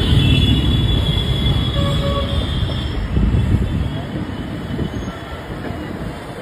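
Running rumble of a moving passenger train, heard from its open doorway. It is loud for the first four seconds and then eases off, with a thin high squeal in the first three seconds.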